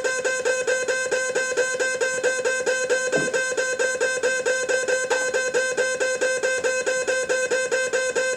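Loud electronic noise from a no-input mixer feedback loop and guitar pedal board: a steady droning tone chopped into even pulses, about seven a second, holding the same pitches throughout.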